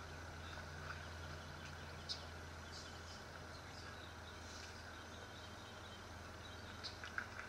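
Faint steady background hum and hiss, with a few faint ticks that become more frequent near the end.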